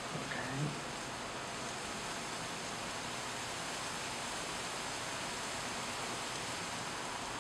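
Steady, even hiss of background noise, with a brief murmur of a voice just after the start. No sound of the tying work stands out.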